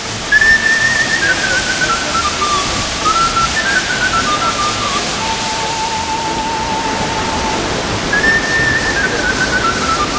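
Waterfall pouring into a pool, a steady rush of water, with a melody in a pure, whistle-like tone over it: a phrase stepping down in pitch, a long wavering note in the middle, then the same phrase again near the end.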